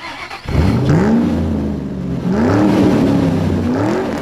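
A car engine revving three times, each rev rising in pitch before it eases off.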